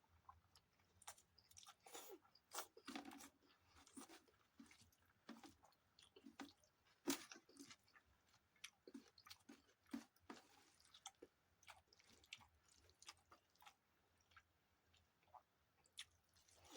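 Close-miked chewing of rice with dalma: irregular wet smacks and clicks of the mouth, busiest in the first half and thinning out later.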